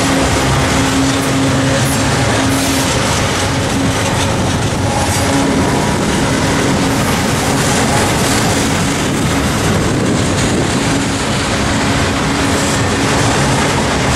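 Double-stack intermodal freight train's well cars rolling past close by: a loud, steady rumble of steel wheels on rail, with a low tone that comes and goes.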